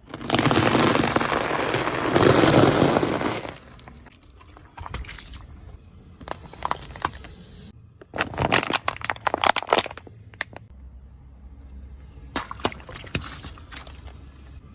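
Crunchy objects cracking and crackling as they are crushed under a car's tyre: a loud dense crackle for about three and a half seconds, then scattered clusters of sharp snaps and cracks.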